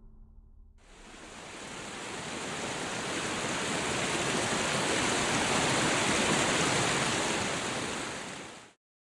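Rushing white water of a river over rapids, a steady hiss that fades in about a second in, swells, then fades and cuts off just before the end.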